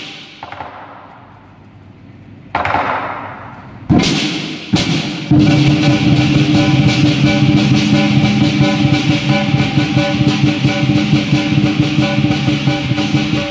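Southern lion dance percussion: a big lion drum and crash cymbals. At first the cymbals ring and die away. Then come a few single accented crashes, and from about five seconds in the whole ensemble plays a dense, continuous beat with ringing metal.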